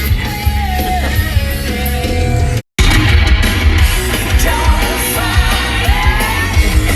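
Loud rock music with a heavy beat and a singing voice. It drops out abruptly for a moment about two and a half seconds in, then resumes.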